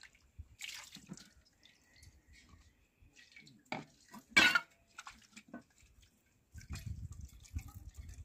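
Dishes washed by hand in water: splashing and dripping, with knocks and clatters of a metal pot and a plastic colander. The loudest clatter comes about four and a half seconds in, and a low rumble follows near the end.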